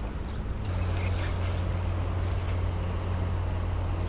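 Small electric trolling motor on a jon boat running with a steady low hum, coming in suddenly under a second in.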